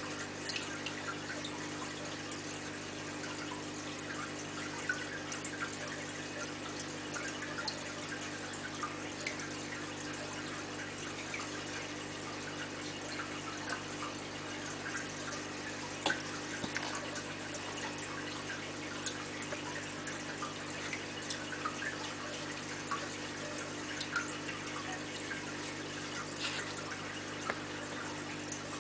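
Aquarium water trickling and dripping: irregular small plinks and ticks over a steady low hum, with one louder click about halfway through.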